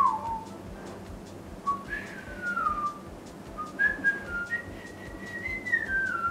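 A person whistling a slow, wandering tune: single clear notes that glide up and down and are held for a second or more, with faint clicks underneath.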